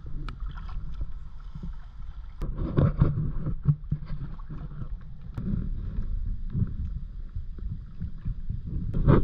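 Kayak paddles dipping and splashing in calm water, several strokes, over a steady rumble of wind on the microphone.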